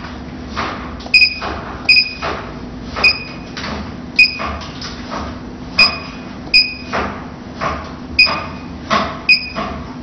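Short electronic beeps from the touchscreen control panel of an LS-650 lipo laser cavitation vacuum slimming machine as its setting buttons are pressed, about eight at uneven intervals. Under them run a steady machine hum and recurring short hissing noises.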